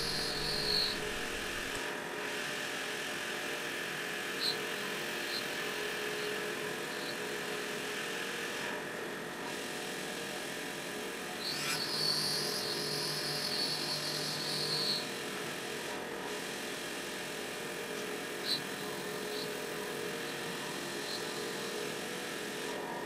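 CNC-converted Precision Matthews PM-30MV mill thread-milling a pre-drilled hole in a brass bar with a 1/4-20 three-flute thread mill: a steady machine hum with several held tones. A higher whine rises out of it twice, near the start and for a few seconds about halfway, and there are a few faint ticks.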